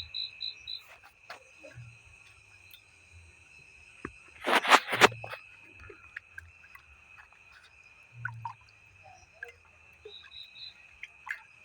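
Night insects chirring in a steady high drone, with quick pulsed calls, about four a second, near the start and again near the end. About four and a half seconds in, a loud noisy burst lasts about half a second.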